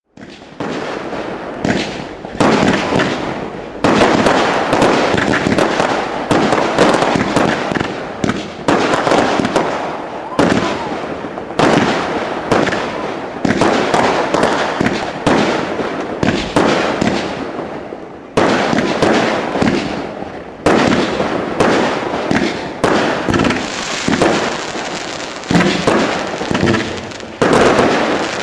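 New Year's Eve fireworks and firecrackers going off: a near-continuous run of sharp bangs about every second, each fading out before the next, with crackling in between.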